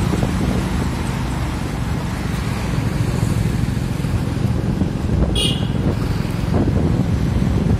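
Road traffic going by: cars and motorcycles passing, with wind buffeting the microphone. A short high-pitched sound cuts through about five seconds in.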